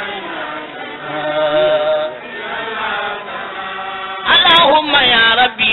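Voices chanting an Islamic devotional chant in long held notes. About four seconds in, a louder single voice comes in with a wavering line, and then the held notes resume.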